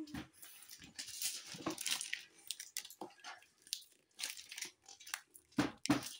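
Wrapper being torn off a boxed plastic carrying case by hand, in irregular short rustling bursts, the loudest near the end.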